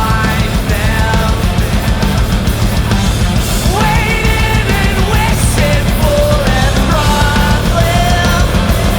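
Loud heavy metal music with a melodic line that bends in pitch over a steady, dense low end.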